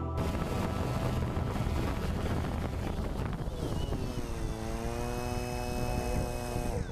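DJI Phantom 2 quadcopter's motors and propellers buzzing close to its onboard camera as it sits at ground level. A steady stacked tone comes in over the rush of the props about halfway through, then its pitch falls and the sound fades near the end.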